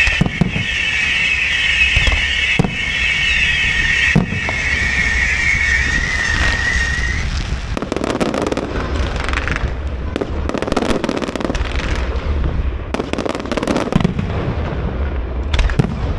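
A fireworks display: many high whistling shells going up together for the first several seconds, with a few sharp bangs. Then, from about halfway, clusters of dense rapid crackling.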